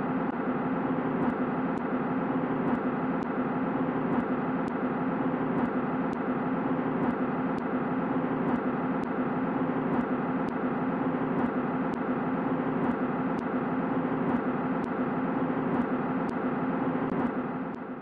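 Steady, dense drone with a strong low hum, a 'space sound' presented as the sound of Pluto's moon Nix.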